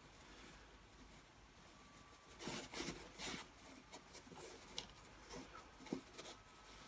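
Faint handling noise of a Bugaboo Fox carrycot's plastic hook and nylon fabric being slid and fitted together: soft rustling and scraping, with a cluster of small knocks and scrapes about two and a half to three and a half seconds in and a few light ticks later.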